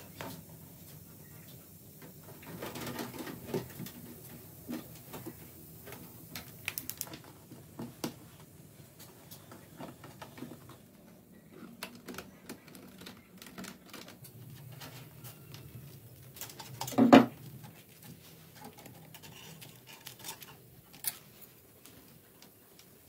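Metal wire mesh being handled, rolled around a large fish and folded on a wooden table: scattered light clicks, taps and rustles, with one much louder thump late on.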